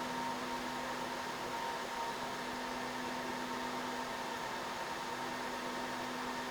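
Dell PowerEdge 2950 rack server's cooling fans running at a steady speed during boot: an even rush of air with two constant hum tones, one low and one higher.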